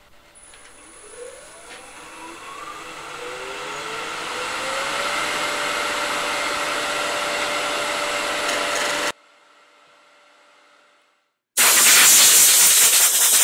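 Wood lathe motor spinning up, its whine rising in pitch for a few seconds and then running steadily with a growing hiss. It cuts off suddenly, and near the end a loud, even hissing noise starts.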